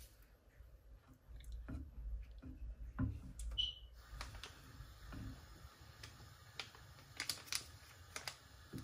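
Silicone spatula stirring orange drink mix in a stainless steel saucepan, with scattered light taps and scrapes against the pan.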